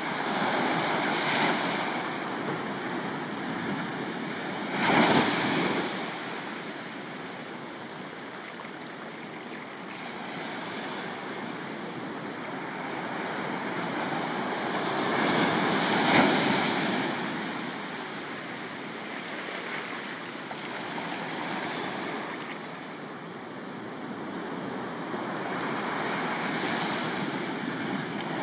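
Ocean surf washing in and breaking against shoreline rocks: a steady wash that swells and falls, with louder surges about five seconds in, around sixteen seconds, and again at the end.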